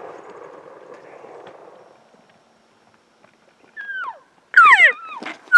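The echo of a muzzleloader shot dies away over the first two seconds. Then, from nearly four seconds in, a run of loud cow-elk mews: squealing calls that each slide steeply down in pitch, three or four of them, the last held longer.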